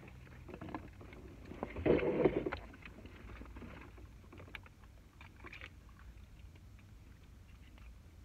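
Small clicks and handling noises at a meal table, with a louder rustle about two seconds in, over a steady low hum.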